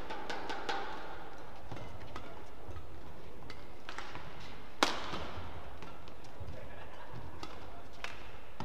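Badminton rackets striking a shuttlecock in a fast doubles rally, a string of sharp pops with one much louder hit about five seconds in, over a steady murmur of the hall.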